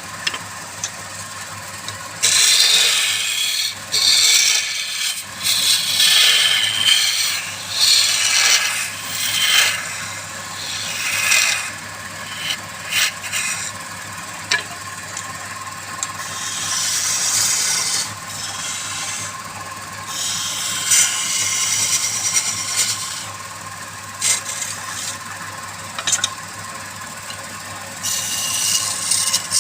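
Wood lathe at work: a tool rubs and scrapes against the spinning wood in repeated passes of one to several seconds, over the steady hum of the lathe motor.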